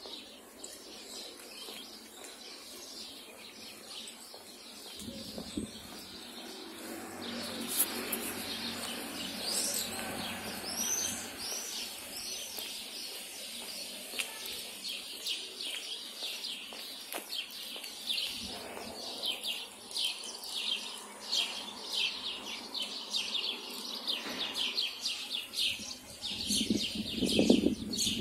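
Small birds chirping in the trees, a busy run of short, high, repeated chirps that grows denser about a quarter of the way in and carries on steadily. Near the end a louder, lower sound swells briefly under the birdsong.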